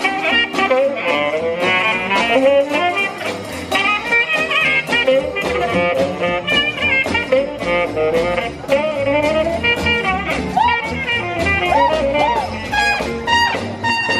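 Jazz music with saxophone and brass over a steady beat.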